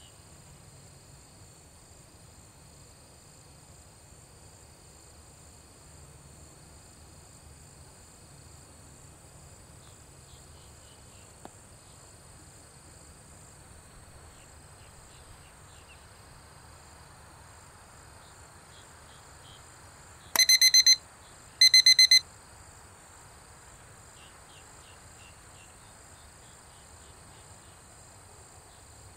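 Two short bursts of loud, rapid electronic alarm beeping, about a second apart, about two-thirds of the way in. Behind them, a steady high chirring of insects in the grass.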